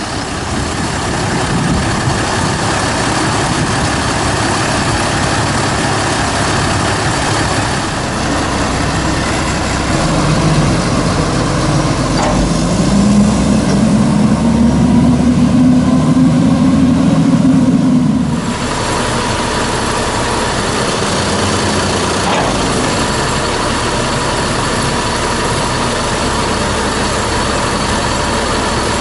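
Diesel engine of a Peterbilt 310 front-loader garbage truck running. It grows louder and deeper as the truck pulls away, about ten seconds in, then drops suddenly to a steady idle after about eighteen seconds.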